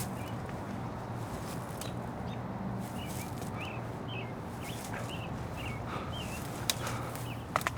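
A small bird chirping a quick series of short, high notes over a steady low hum, with a few sharp clicks near the end.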